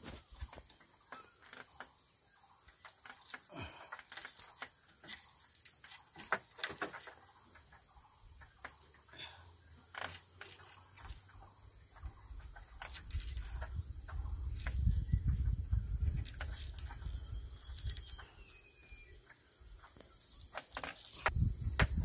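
Scattered small clicks and crackles of shattered windshield glass being picked and scraped out of a JCB 3DX backhoe cab frame with a hand tool, with a few duller knocks and handling rumbles around the middle and near the end. Insects chirr steadily throughout as a constant high buzz.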